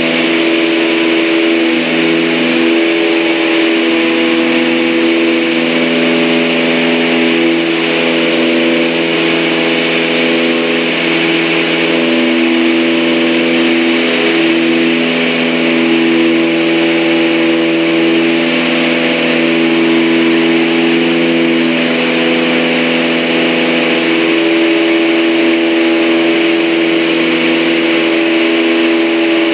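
Cabin sound of a Piper Aztec's twin piston engines and propellers running steadily in flight, with a steady hiss of airflow. The drone slowly swells and fades every few seconds as the two engines beat slightly out of sync.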